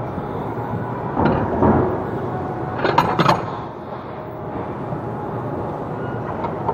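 Metal weight plates knocking and clanking together as they are handled on the floor: a couple of duller knocks, then a sharper pair of clanks about three seconds in, over steady gym room noise.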